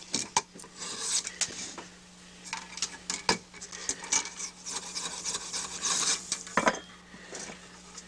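Hand chisel shaving a split bamboo rod strip held in a wooden jig: repeated scraping strokes with sharp clicks between them. It is the roughing-down stage, taking the strip close to size before final planing.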